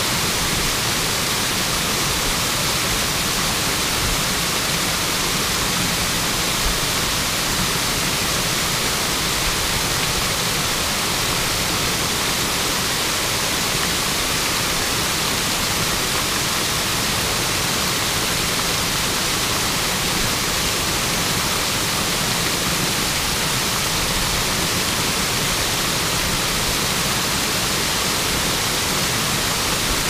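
Waterfall pouring over rock ledges and splashing into the pool below: a steady, unbroken rush of falling water, heavy in the hiss.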